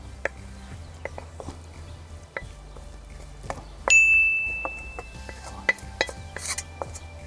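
Stainless steel pan and wooden spatula knocking and scraping against a bowl as noodles are tipped out: a series of light clicks and taps, with one loud clang about four seconds in that rings on and fades.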